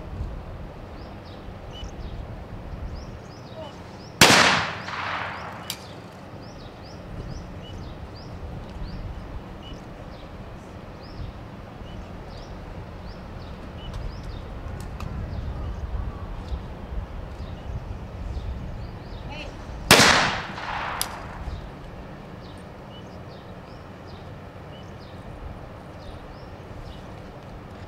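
Two trap shotgun shots about sixteen seconds apart, one at a time from shooters firing at clay targets. Each is a sharp crack followed by a rolling echo that dies away over about a second and a half.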